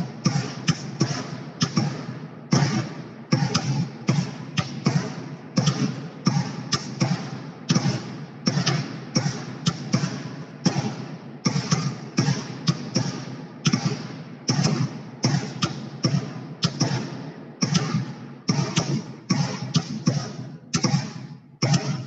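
Footballs bounced on hard floors and caught in goalkeepers' hands, several players at once over a video call: a continuous run of sharp thuds and slaps, about three a second and unevenly spaced.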